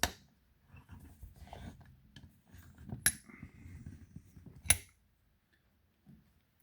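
Lock-picking tools being worked into the keyway of a 40mm Mi-Lock padlock: a sharp click at the start, faint metal scraping, then two sharper clicks about three and four and a half seconds in.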